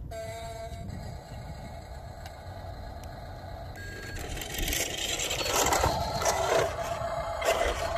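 1:20-scale RC Mercedes-Benz Arocs truck running as it backs up over gravel. A steady electric hum gets louder and busier from about four and a half seconds in, as the truck moves in close.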